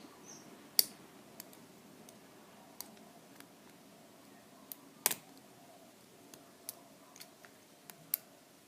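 Scattered sharp metallic clicks and ticks from a lock pick and tension wrench working the pins of an all-brass American Lock round padlock, about a dozen in all, the loudest about five seconds in.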